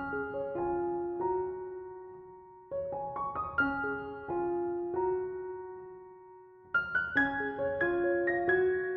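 Soft, slow solo piano music: short runs of notes that are then held and left to die away, in three phrases.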